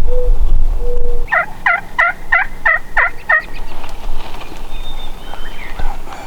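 A Merriam's wild turkey gobbling once, a fast rattling run of about seven warbling notes starting about a second and a half in. A low rumble fills the first second or so.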